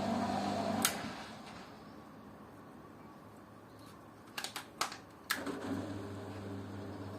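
Washing machine motor hums steadily, then stops with a sharp click about a second in. After a pause a few sharp clicks come in quick succession and the hum starts again, typical of the drum pausing and restarting between turns in a wash cycle.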